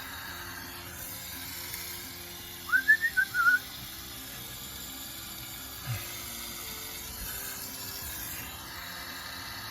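A brief high whistle of a few quick notes, gliding up and then wavering, about three seconds in, over a steady hiss.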